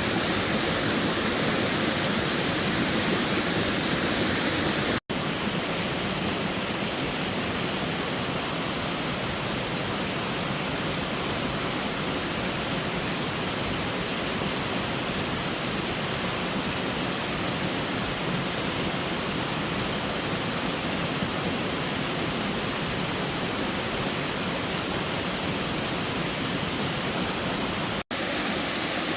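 Steady rushing of water, an even hiss with no rhythm or pitch. It cuts out for an instant twice, about five seconds in and near the end.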